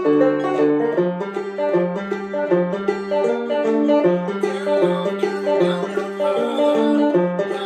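Five-string resonator banjo fingerpicked in a steady, continuous run of quick notes over a repeating lower note, playing a non-bluegrass tune.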